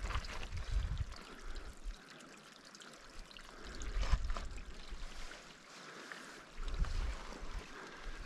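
Wind buffeting the microphone in gusts, strongest at the start, about four seconds in and near the end, with a few sharp clicks of boots scrambling on loose rock and talus.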